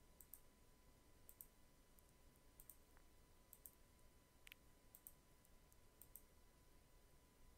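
Faint computer mouse clicks, mostly quick press-and-release pairs about once a second, each placing an anchor point while tracing an outline with the pen tool. A faint steady thin tone runs underneath.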